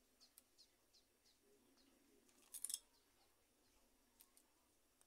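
Scissors snipping through a plant's roots: a quick cluster of snips about two and a half seconds in, then a couple of single faint clicks.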